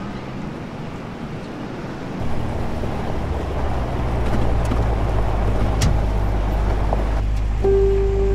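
Car driving: a steady low rumble of engine and road noise heard from inside the cabin, growing louder about two seconds in. A held musical note comes in near the end.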